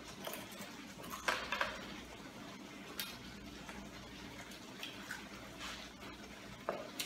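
Metal spoon scraping and clinking against a cooking pot as gravy is stirred and spooned over the fish: scattered short knocks and scrapes, over a faint steady low hum.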